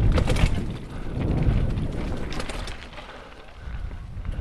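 Mountain bike rolling fast down a dirt singletrack, heard through a GoPro Hero3: wind buffeting the camera's microphone and tyre rumble, with sharp rattles from the bike over the trail a few times.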